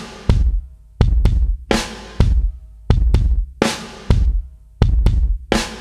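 Drum-kit beat in a music track: kick and snare hits in a steady repeating pattern, with faint pitched notes between them.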